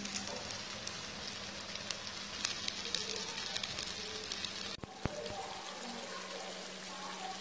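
Unniyappam batter frying in hot oil in the cups of a paniyaram pan on medium heat: a steady, crackling sizzle, with a brief break about five seconds in.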